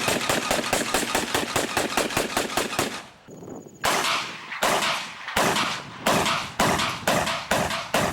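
Automatic gunfire: a rapid burst of about eight shots a second lasting about three seconds, then after a short pause a string of separate shots roughly every two-thirds of a second, each with a trailing echo.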